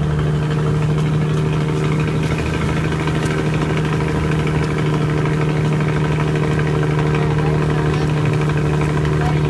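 Outrigger boat's (bangka's) engine running steadily at an even speed, with the wash of water rushing past the hull and outriggers.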